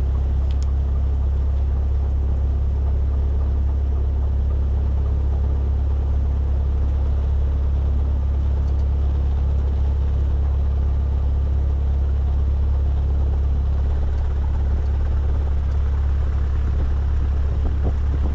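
Cessna's engine running steadily, heard inside the cockpit as a constant low drone with no change in pitch or level, typical of taxiing off the runway after landing.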